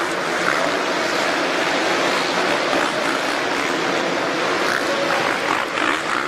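Supercross dirt bike engines revving in a stadium under a steady, dense din.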